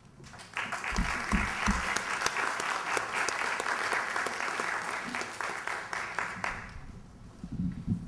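Audience applauding: a round of clapping that starts about half a second in, holds steady, and dies away near the end.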